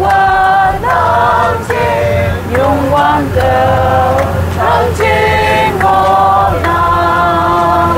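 A busload of men and women singing a song together in unison, held notes moving from pitch to pitch.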